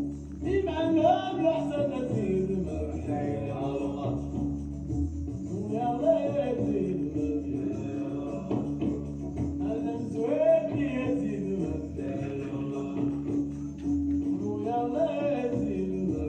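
Music with a male voice singing phrases every few seconds over a steady held drone tone.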